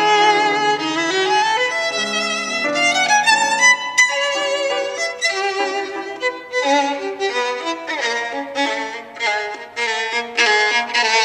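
Solo violin playing with piano accompaniment. For the first few seconds the violin sings held notes with vibrato over low piano notes; from about six seconds in it plays fast runs of short, quick notes.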